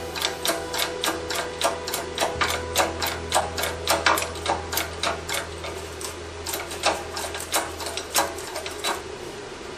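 Hydraulic bottle jack on a shop press being pumped by hand, a steady run of sharp metallic clicks about three a second, as it presses a bearing onto a differential carrier. A steady low hum sits underneath and stops near the end.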